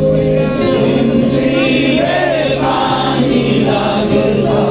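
Live band music with singing, amplified through concert PA speakers and picked up from within the crowd.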